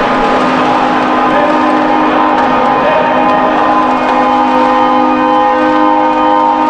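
Several horns sounding in long, steady held blasts over a loud rushing noise as a car-carrier ship is launched from its building hall; another tone joins partway through.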